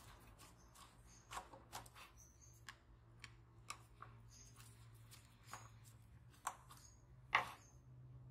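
Irregular light clicks and taps from small hand work, some with brief high squeaks, over a steady low hum; one sharper click near the end.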